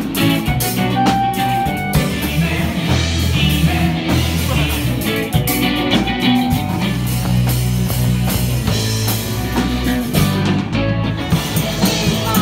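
Rock music from a band: drum kit, electric guitar and bass guitar, with a singing voice.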